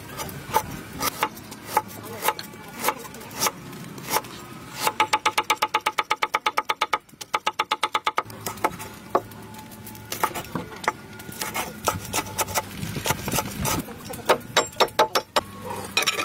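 Cleaver blade chopping ginger on a wooden cutting board: slow, irregular knocks about twice a second, then a fast, even run of about seven chops a second, as the slices are cut into thin strips, with a slight ring from the blade, then scattered knocks again.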